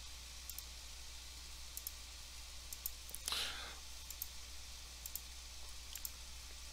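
Computer mouse button clicked about once a second, each click a quick press-and-release pair, as keys are pressed on an on-screen calculator emulator. A short breath about three seconds in, over a low steady hum.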